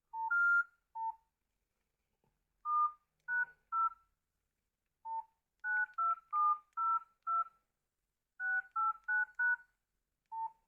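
Keypad tones of a Nokia 6303 classic mobile phone as its keys are pressed one by one: about seventeen short dialing beeps, each two notes at once, in quick uneven runs.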